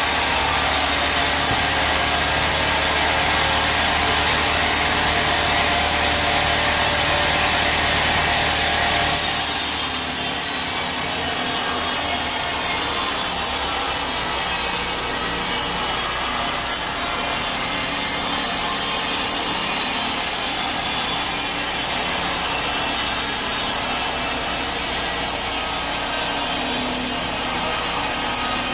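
Sawmill band saw blade cutting through a teak log, a steady dense rasping hiss. The sound changes abruptly about nine seconds in.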